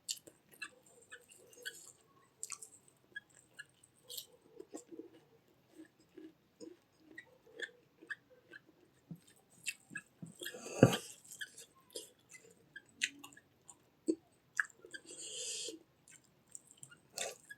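Close-up chewing and mouth sounds of a person eating, with many small irregular clicks. One loud knock about two-thirds of the way through.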